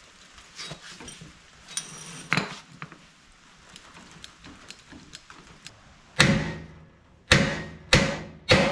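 Hammer blows on the dented front body panel of a 1979 Ford F250: four loud strikes on the sheet metal starting about six seconds in, each ringing briefly. Before them, a few light clicks and knocks.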